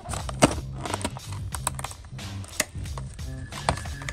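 Clear plastic blister tray and cardboard packaging of an action-figure box being handled, giving irregular sharp clicks and crinkles. Background music with a repeating bass line runs underneath.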